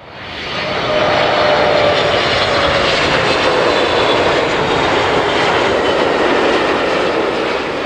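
Aircraft engine noise that fades in over the first second and then holds loud and steady, with a whine that slowly falls in pitch, as of an airliner passing close.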